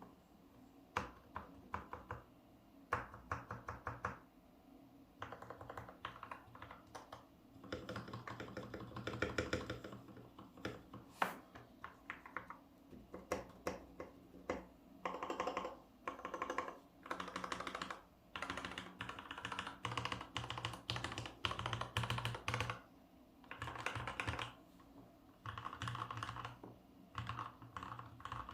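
Typing on a Gamakay LK67 mechanical keyboard with lubed and filmed Cherry MX Black linear switches: fast runs of keystrokes in bursts, with short pauses between them.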